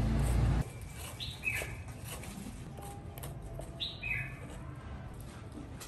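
Chef's knife slicing a white root vegetable into thin strips on a plastic cutting board, with light, scattered taps of the blade on the board. A bird gives two short falling chirps, about two and a half seconds apart. A louder low sound stops abruptly about half a second in.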